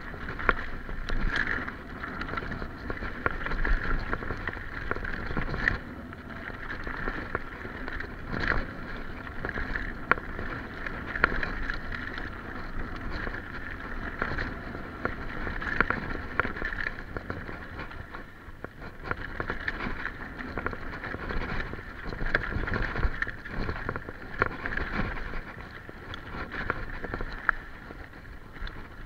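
Enduro mountain bike rolling fast down a rough dirt trail: a continuous rattle and whir of tyres, chain and frame, with many sharp knocks as it hits bumps and rocks.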